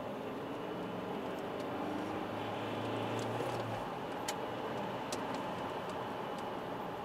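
Alfa Romeo 159 1.9 JTDM four-cylinder turbodiesel cruising, heard from inside the cabin: a steady engine hum under tyre and road noise. A low drone drops away a little before halfway, and there are a couple of faint ticks about four and five seconds in.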